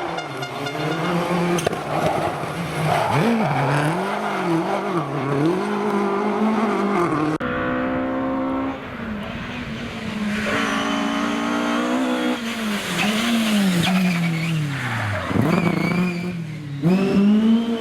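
Historic rally car engines driven hard on a stage, revs climbing and dropping again and again through gear changes and lifts. The sound switches abruptly to a different car a little over a third of the way in, and again a little later, and near the end the revs fall low, then climb sharply as a car accelerates away.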